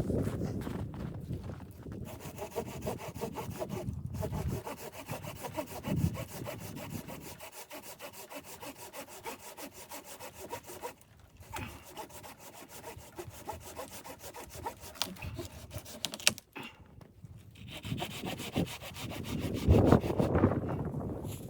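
Hand saw cutting through wood, working in steady back-and-forth strokes, with heavier low thumps near the start and near the end.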